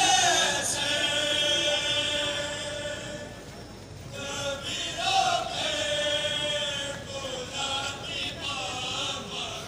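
Men's voices chanting a devotional recitation together in long, held phrases, the notes sliding down in pitch at the start of each phrase. A short pause falls a little past the middle.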